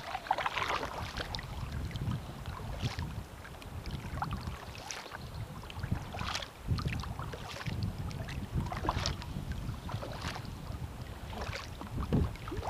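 Kayak paddle strokes splashing and dripping in river water, a stroke every second or so, over water lapping the hull and a low rumble of wind on the microphone.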